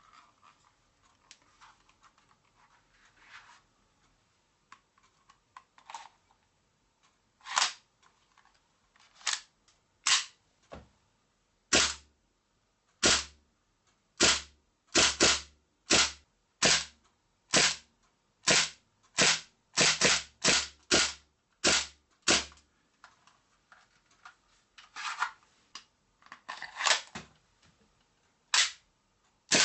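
Marushin AMT AutoMag Clint 1 gas blowback airsoft pistol firing a long string of single shots, about twenty sharp cracks, some spaced a second or more apart and others coming quickly one after another, each with the bolt cycling back. Quieter handling clicks come before the first shot.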